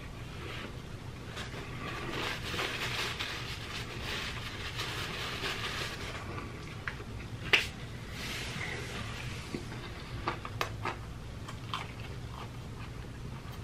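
A person chewing a mouthful of fried chicken close to the microphone, with wet mouth sounds and crackle, and scattered sharp clicks, the strongest about seven and a half seconds in.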